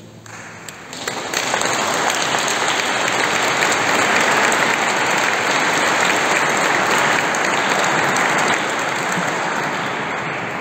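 Audience applauding at the end of a piece, building up about a second in and tapering off near the end.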